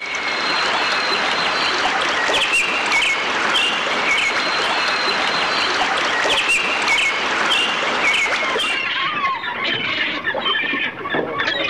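Many birds chirping and whistling over a dense hiss of outdoor ambience. About nine seconds in the sound changes to a duller ambience with different, lower curving calls.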